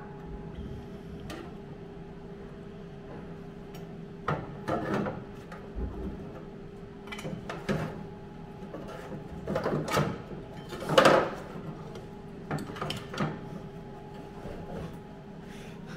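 Hand tools working on bare car-body sheet metal: irregular metallic clunks, knocks and scrapes in short spells, the loudest about eleven seconds in, over a steady hum.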